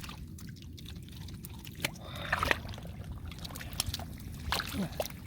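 Wet mud and shallow water being worked by hand: squelching, dripping and small splashes, loudest about two seconds in, over a steady low rumble.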